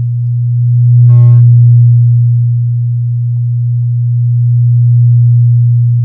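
Acoustic feedback howl from a microphone held next to a loudspeaker: a loud, steady low tone that swells about a second in and again near the end.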